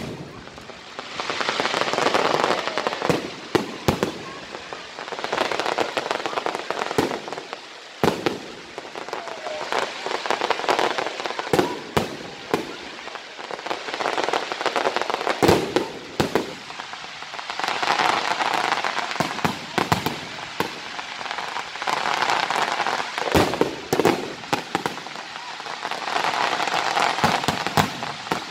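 Aerial fireworks bursting one after another: sharp bangs at uneven intervals over long spells of dense crackling from the white crackle shells.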